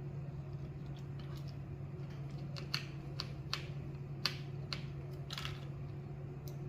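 A handful of small, sharp clicks and taps from screws and a screwdriver being handled against the clipper's parts during reassembly, over a steady low hum.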